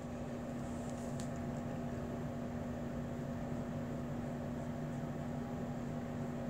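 Steady background hum and hiss with a constant low tone, like a fan or air conditioner running in the room; a faint tick about a second in.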